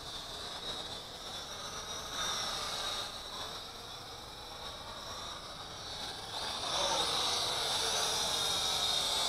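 ZC Toys Z1 quadcopter's motors and propellers whining in flight, the pitch drifting as the throttle changes. The whine gets louder about two-thirds of the way through as the drone flies in close.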